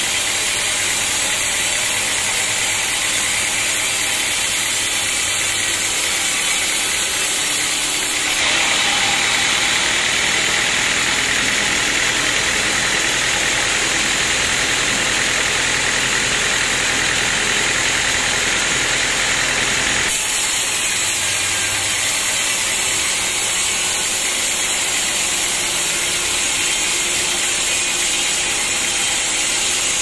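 Band sawmill running, its blade sawing through a teak log with a steady mechanical hiss and hum. For about ten seconds in the middle the sound turns brighter, hissier and slightly louder, then settles back.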